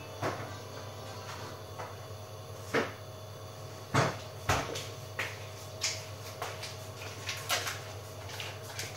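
Beko front-loading washing machine running with a steady low hum, broken by irregular knocks and clunks every second or so, the loudest two close together about four seconds in.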